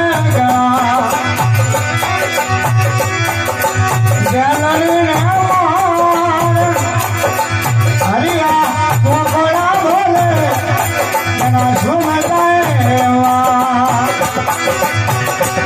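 Desi bhajan folk devotional music: a voice sings a gliding, ornamented melody over held instrumental notes, with a hand drum keeping a steady beat.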